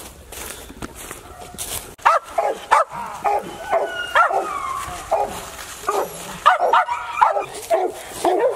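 Feist squirrel dogs barking treed: a quick run of sharp barks starting about two seconds in, with a brief whine mixed in, the steady bark of dogs that have a squirrel up a tree.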